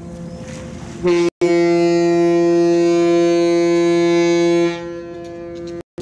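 Ship's horn sounding one long, steady blast that starts about a second in and lasts about three and a half seconds. The same low, even tone carries on more faintly before and after it.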